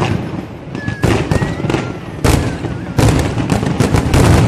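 Aerial fireworks display: shells bursting in rapid clusters of sharp bangs and crackle, with a short lull in the middle and the densest run of bangs in the last second and a half.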